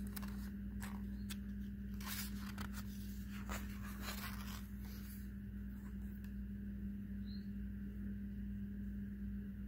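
Paper pages of a picture book being turned, with short rustles and crackles in the first half. A steady low hum runs under it.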